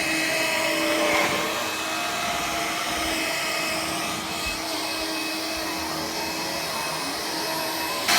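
Hoover Air Cordless battery-powered upright vacuum cleaner running steadily: the rush of air with a steady motor whine on top.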